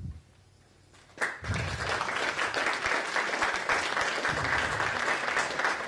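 Audience applauding: after a second of hush, dense clapping from many hands starts suddenly and keeps up steadily.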